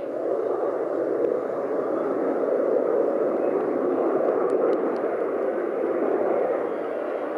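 Four-engine jet noise from the NASA Boeing 747 Shuttle Carrier Aircraft passing overhead, heard from the ground as a steady rushing rumble that swells at the start and then holds.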